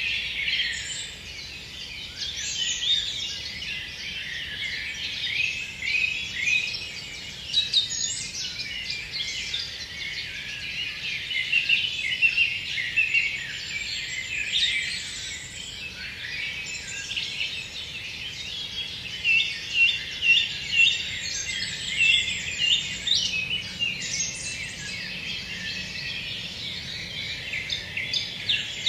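A chorus of several songbirds singing at once, overlapping trills and chirps, with a soft breeze beneath them.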